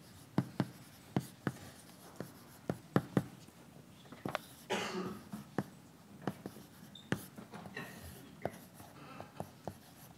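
Chalk on a blackboard as equations are written: irregular sharp taps and short scratchy strokes.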